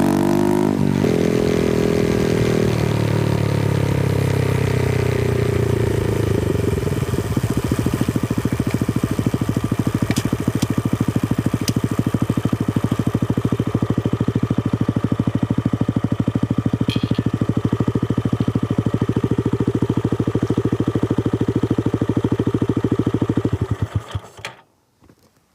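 Honda Grom's 125cc single-cylinder four-stroke engine, close-miked at the exhaust. It comes off the throttle with a falling note, settles into a steady, even idle, and is switched off about a second before the end.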